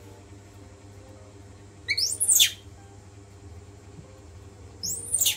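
Baby monkey giving two loud, high-pitched squeals, each sweeping sharply up and back down, about two seconds in and near the end, over a steady low hum.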